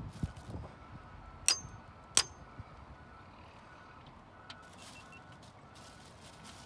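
Hand tools working on a bare Honda cylinder head while valve keepers are removed: two sharp, ringing metal clinks about a second and a half and two seconds in, with a few lighter ticks around them.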